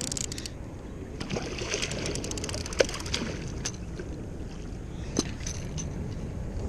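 Steady rush of wind and moving river water around a small boat, with quick runs of clicks and two sharp knocks, about three and five seconds in.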